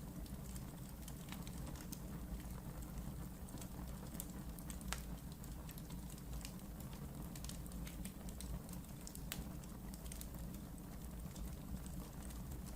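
Wood fire in a fireplace crackling, with irregular sharp pops and snaps over a low steady rumble of burning.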